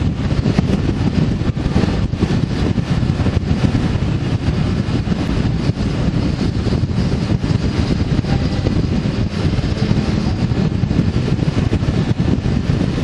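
Steady wind rushing over the microphone of a moving vehicle, with low road and running noise underneath.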